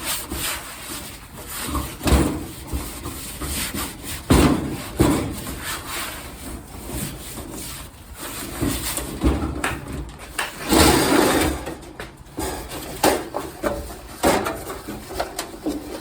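Rubbing and scrubbing on the top of a kerosene heater as it is wiped clean, an irregular scratchy sound broken by a few knocks and bumps.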